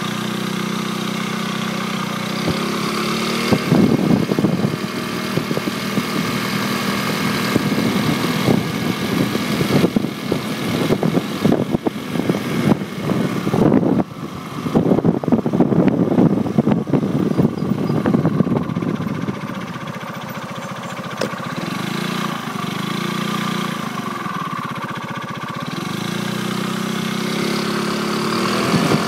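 Motorcycle engine running at a steady cruise while riding, with wind buffeting the handlebar-mounted microphone in rough gusts, heaviest through the middle stretch.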